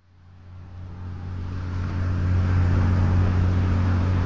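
Ambient sound-effect bed fading in over about two seconds: a deep steady engine-like hum with a rushing hiss over it.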